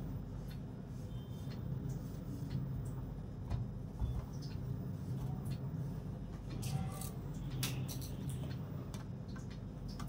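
Tomatoes and plastic produce bags being handled over a plastic strainer basket: scattered light clicks and rustles, with two soft thumps about three and a half and four seconds in, over a steady low hum.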